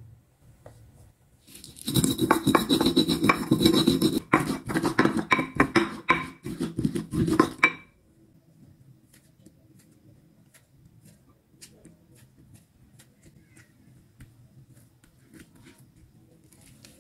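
Ceramic pestle grinding chillies, shallots and garlic with salt against the ridged bottom of a ceramic mortar: a dense run of quick scraping knocks that starts about two seconds in and lasts about six seconds. After that it goes much quieter, with only faint soft taps.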